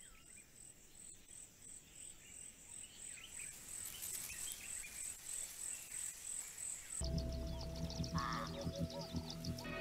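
Wild ambience fading in: a high, pulsing chirp repeating about three times a second, with short bird-like calls. About seven seconds in, background music with sustained tones comes in abruptly and takes over.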